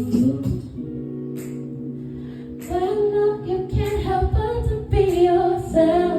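Live band music: a held chord for the first couple of seconds, then a woman singing a wordless melodic line over a beat from about three seconds in.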